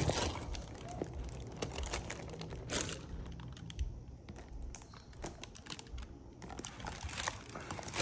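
Irregular light clicks and taps of a cellophane-wrapped perfume box being handled and turned over in the hand, with an occasional brief soft rustle.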